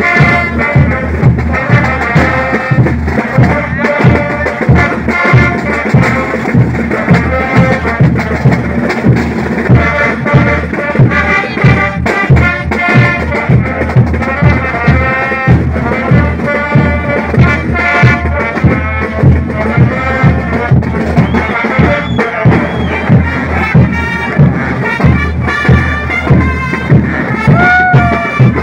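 Band music with brass or reed wind instruments over a steady drum beat of about two beats a second.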